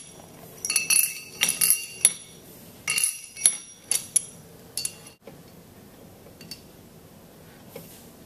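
Steel cylinder bolts clinking against each other in the hand and against the steel pump housing as they are installed: a run of light metallic clinks with a short ringing tone, dying away about five seconds in to a few faint ticks.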